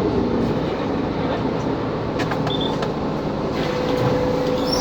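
Mercedes-Benz Capacity L city bus running: a steady engine and rolling noise, with a few light clicks or rattles about halfway through.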